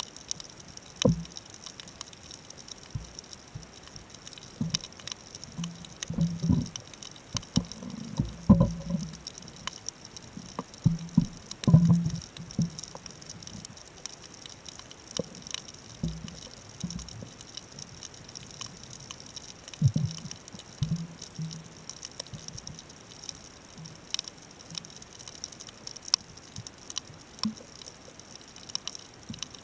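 Underwater reef sound picked up by a camera set on the seabed: a constant crackle of small clicks, with irregular low thumps and knocks, the loudest about eight and twelve seconds in.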